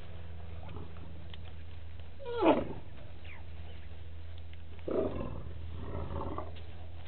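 African elephants calling: one short, loud call falling steeply in pitch about two and a half seconds in, then a quieter, longer call from about five to six and a half seconds.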